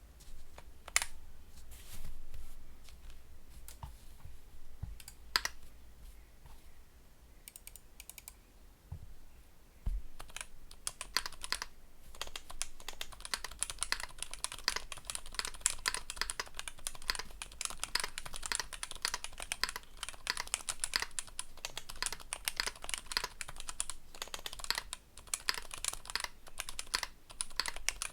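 Typing on a KBDfans D60 WKL gasket-mounted mechanical keyboard with an FR4 plate, TTC Bluish White switches and EPBT PBT keycaps. A few scattered single keystrokes for the first ten seconds, then fast, continuous typing from about ten seconds in.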